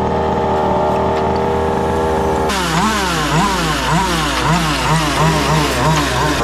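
Taylor 35 two-stroke engine of a fifth-scale RC truck idling steadily, then from about two and a half seconds in revved in quick throttle blips, about two and a half a second.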